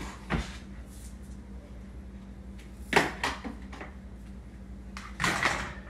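Stainless steel pot and plastic lid being handled on a hob: a short click just after the start, a couple of sharp knocks about three seconds in, and a longer rustle around five seconds, over a steady low hum.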